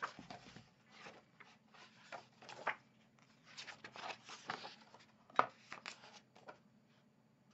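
Paper pages of a large illustrated book being turned by hand: a run of rustles and flaps, with one sharp page snap about five and a half seconds in.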